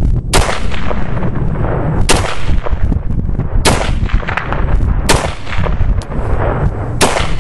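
SVT-40 semi-automatic rifle firing Chinese surplus 7.62x54R rounds: five shots, one every second and a half to two seconds, each with a short echoing tail. Heavy wind buffets the microphone throughout.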